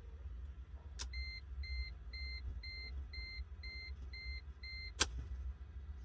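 A sharp click, then eight short high electronic beeps at about two a second, then another sharp click, over a steady low hum.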